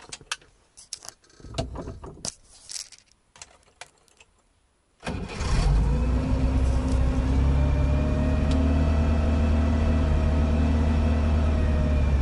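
IZh 2125 Kombi's four-cylinder petrol engine started with the ignition key: a few key clicks and jingles, then about five seconds in it catches at once and settles into a steady idle. It starts readily, with its carburettor freshly cleaned and its cables adjusted.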